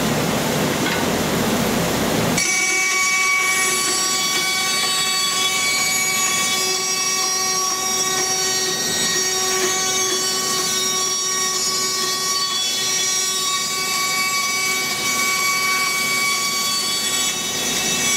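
Scheppach Basato 5-4 band saw running with a steady, many-toned whine. For about the first two seconds a louder rushing noise lies over it, the blade cutting wood, which stops abruptly; the whine holds steady after that.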